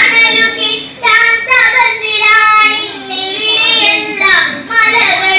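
A young girl singing solo into a microphone: melodic phrases with held notes and short pauses for breath between them.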